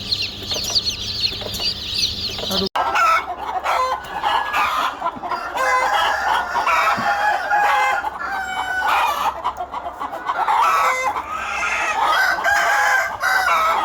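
A flock of chickens: dense high chirping for the first couple of seconds, then, after a sudden cut, hens clucking and roosters crowing in overlapping, drawn-out calls.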